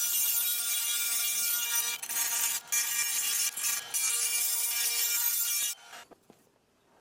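A power tool running with a steady whine and a harsh grinding hiss as it works on material. It is briefly interrupted a few times and stops about six seconds in.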